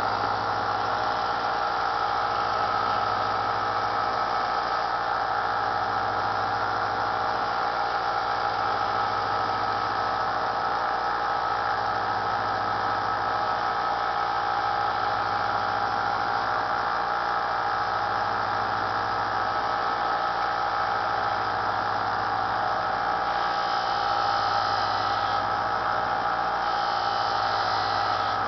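Small benchtop belt sander with a muslin buffing wheel running steadily, a motor hum with a low throb about every two seconds. Twice near the end a brief higher hiss joins it.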